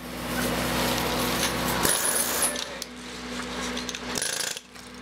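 Pneumatic jackhammers chattering with rapid impacts and metallic clinks as they break the mold away from a freshly cast bronze bell, over a steady low hum. The hammering eases about three seconds in and picks up again near the end.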